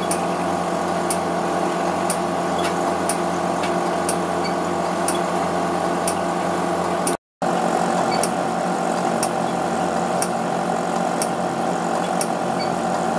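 Rack of laboratory gas-analysis instruments running: a steady machine hum of fans and pumps made of many held tones, with sharp ticks roughly once a second. The sound drops out for a moment about seven seconds in.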